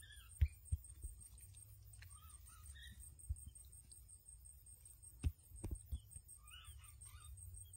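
Faint short chirping calls in three brief bouts over a low rumble, with several dull thumps, the loudest about half a second in and again a little past five seconds.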